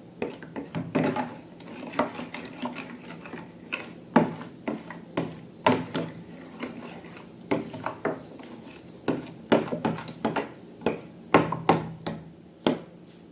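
Irregular clinks, taps and scraping of hard utensils and containers being handled, a few knocks a second at uneven spacing, typical of mixing slime ingredients in a bowl.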